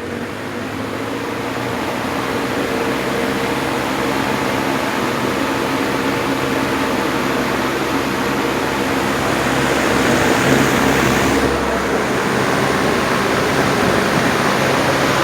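1950s Wizard reversible box fan running on its reversible setting, just switched from low to high: a motor hum with rushing air that grows louder over the first few seconds as it speeds up, then runs steadily.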